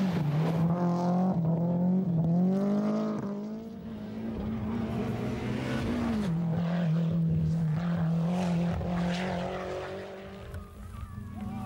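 Rally car engines revving hard, the pitch climbing and falling back several times as a car shifts up through the gears, then another car running at steadier revs from about halfway in.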